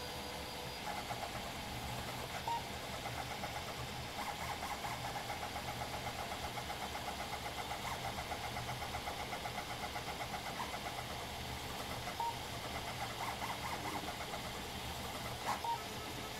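Stepper motors of a Hypercube CoreXY 3D printer buzzing in rapid short bursts as the print head makes quick back-and-forth moves over a small part, with a few brief sharp tones, over the steady hum of the printer's fans.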